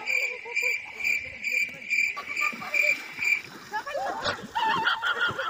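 A cricket chirping in steady, evenly spaced high-pitched pulses, about three a second, which stop about three and a half seconds in; irregular chirping calls and voices follow near the end.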